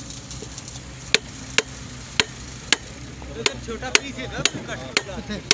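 Hammer knocking on a wooden board held against a white PVC wye fitting, tapping the fitting onto the end of a black perforated drain pipe: a series of sharp knocks, about two a second, starting about a second in.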